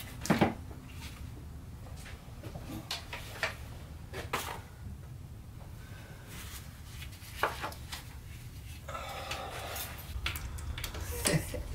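Plastic air-intake parts being handled and pulled out of a car's engine bay: scattered clicks, knocks and light rattles, the loudest about half a second in.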